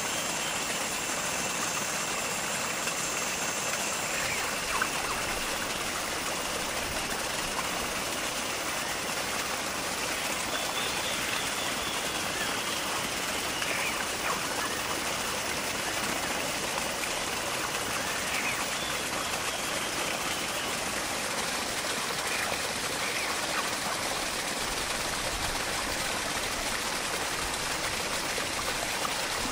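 Steady rush of running water, even and unbroken, with faint thin high tones above it now and then.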